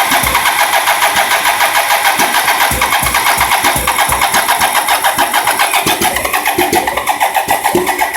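1987 BMW K75S three-cylinder engine turning over on its electric starter in a fast, even churn, with scattered low thumps as it fires weakly without catching. It sounds ready to fire but won't start, and the owner hears clunky sounds from around the throttle bodies.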